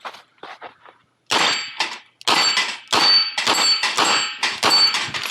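A rapid string of 9mm Smith & Wesson 929 revolver shots striking steel plates, each hit followed by a metallic ring. A few faint hits come in the first second, then loud shot-and-ring pairs at about three a second from just over a second in.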